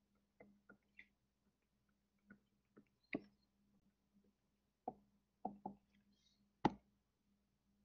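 Faint, scattered clicks and taps of a stylus on a tablet screen while handwriting, about a dozen, the loudest about three seconds in and near seven seconds.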